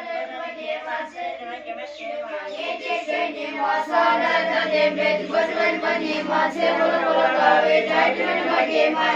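A group of children chanting together in unison, a steady many-voiced recitation that grows louder about four seconds in.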